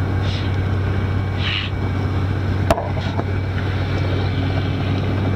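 Robinson R44 helicopter's six-cylinder Lycoming piston engine and rotors running steadily on the ground after warm-up, a constant low hum, with a single sharp click about two and a half seconds in.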